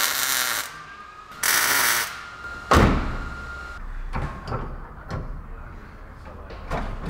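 Two short bursts of electric arc welding, a steady crackling hiss, as the handbrake bracket is tack-welded to the transmission tunnel. Then a single loud metallic thunk a little under three seconds in, followed by a few light clicks and knocks of parts being handled.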